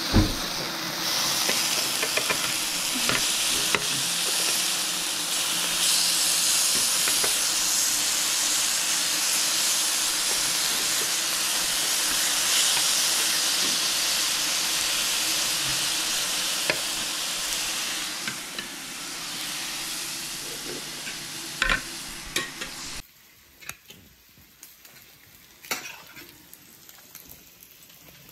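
Pork belly and thin-sliced beef sizzling steadily on a ridged electric grill pan, with a few light clicks. The sizzle cuts off abruptly about 23 seconds in, leaving quiet room sound with a few light knocks.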